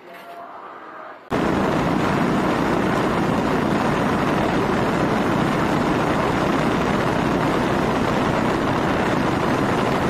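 Wind buffeting the microphone of a phone mounted on a moving motorcycle's handlebar: a loud, steady rush of noise that starts abruptly about a second in, with no distinct engine note heard through it.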